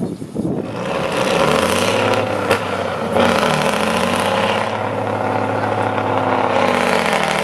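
An 8x8 trial truck's diesel engine revving hard under load. It builds up about half a second in, dips briefly around three seconds in, then pulls up again, with a sharp knock partway through.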